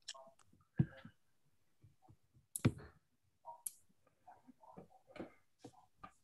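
Irregular clicks and knocks heard over a video call's audio, the two loudest about a second and nearly three seconds in.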